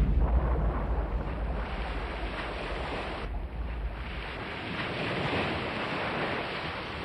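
Sea surf with wind rumbling on the microphone. About three seconds in the rumble drops away, leaving a brighter hiss of shallow waves washing over pebbles.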